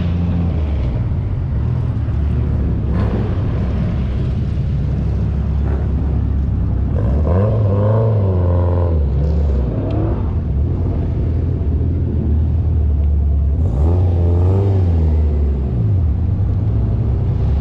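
Performance car engines idling with a steady, loud low rumble. Twice, around the middle and again near the end, the engine note rises and falls in pitch as an engine is revved.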